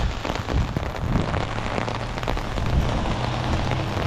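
Steady rain drumming on an umbrella held just over the microphone: a dense spread of small drop hits, with a low steady hum underneath from about a second in.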